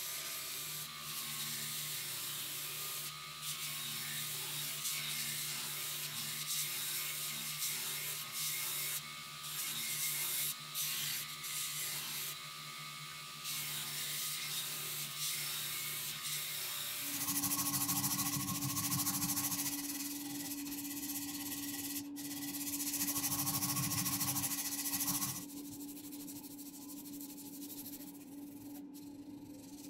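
A stationary woodworking machine running with a steady hum as a wooden hammer-handle blank is worked against it; a little past halfway it turns louder and noisier with a steady tone. Near the end comes the rapid scratching of sandpaper rubbed by hand along the wooden handle.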